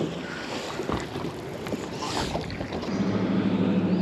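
Wind and water noise with a few light knocks, then about three seconds in a steady low electric hum starts: the bow-mounted trolling motor pushing the small boat along.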